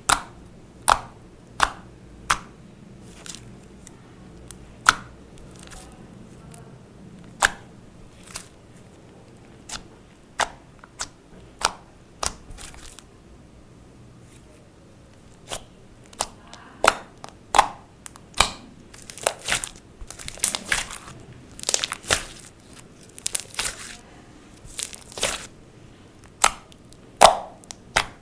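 Clear slime being kneaded and stretched by hand, giving a run of irregular sharp sticky pops and clicks that grow denser about two thirds of the way through.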